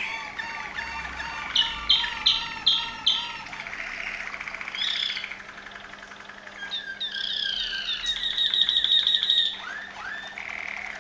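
Waterslager Malinois canary singing a continuous string of song tours. It opens with repeated curved notes and then five loud high notes a third of a second apart. Fast rolling trills follow, with a long steady high note over the later trill.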